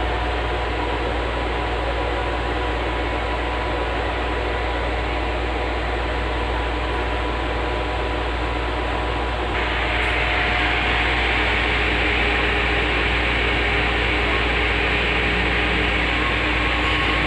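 Sapphire RX 570 graphics card's single cooling fan running as a steady whir over a low hum. About ten seconds in it speeds up and gets louder as the card heats up under mining load.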